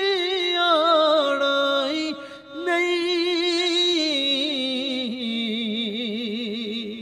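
A man singing a Punjabi naat unaccompanied, drawing out long wavering notes between lines of lyrics. One phrase breaks off about two seconds in, then a second long phrase follows and steps down lower in pitch toward the end.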